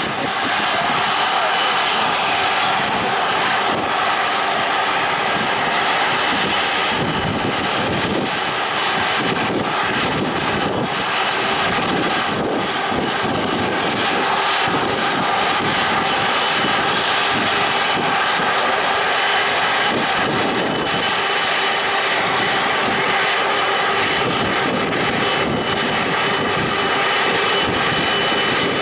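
Jet airliner engines running steadily: a loud, even rush with a faint high whine.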